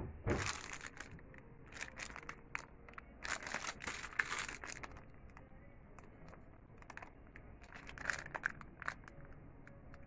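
Plastic packaging crinkling in several short bursts as it is handled.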